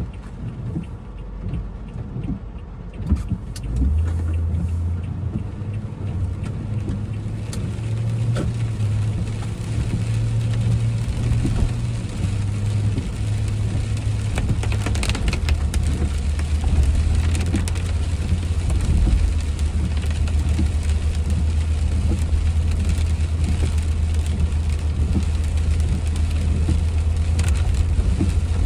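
Car engine and road noise heard from inside the cabin while driving. A steady low drone sets in about four seconds in, gets louder, and shifts in pitch around the middle before running on evenly.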